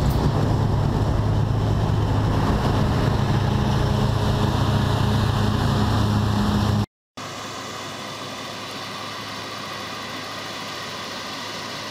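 New Holland CX820 combine harvester's engine running up close, a loud steady low hum. About seven seconds in the sound drops out for a moment, then gives way to a quieter, steady drone of farm machinery further off.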